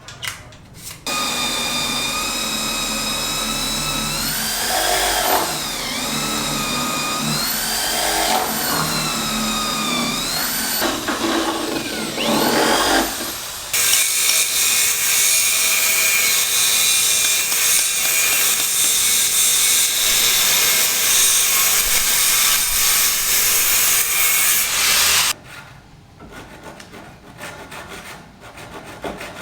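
A high-speed handheld power tool cutting: its motor whine dips in pitch several times as it bites into the material, then gives way to a harsh, hissing grinding or sawing noise, which cuts off about four seconds before the end.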